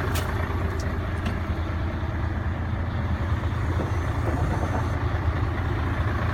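Mercedes-Benz 2532 truck's diesel engine idling with a steady, even low rumble, with a few short clicks in the first second and a half.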